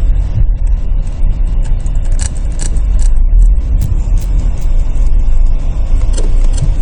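Car driving, heard from inside the cabin: a steady low rumble of road and engine noise, with a few light clicks or rattles around the middle.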